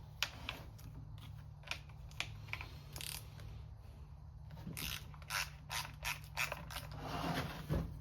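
Hand tools clicking and ratcheting on the screws of a Homelite XL12 chainsaw's recoil starter housing as it is being unscrewed: irregular sharp clicks over a steady low hum.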